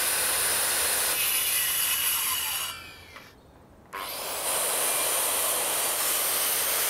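Corded circular saw cutting through a 125 mm square timber post in two passes. The first cut runs for nearly three seconds and dies away. The saw starts again about four seconds in for a second, longer cut.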